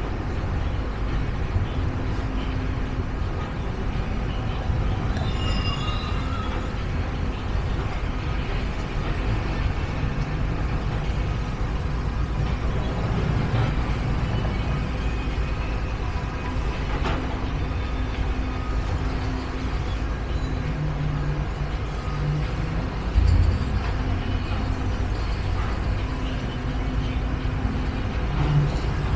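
Steady low mechanical rumble with faint steady tones over it, and a brief louder thump about 23 seconds in.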